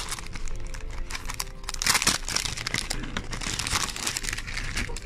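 Plastic wrapper crinkling and crackling as a Pinlock anti-fog insert is pulled out of its packet, with a louder crackle about two seconds in.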